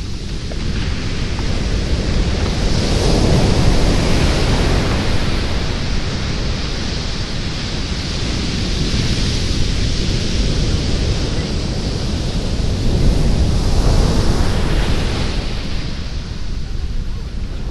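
Sea waves breaking on a sandy beach: a continuous wash of surf that swells louder twice, a few seconds in and again about two-thirds of the way through.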